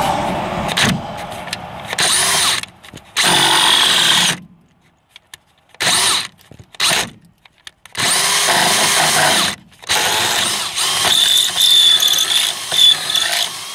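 Power drill boring a large twist bit through a 2x4 in about seven stop-start runs, the longest near the end, with a steady whine in the last few seconds.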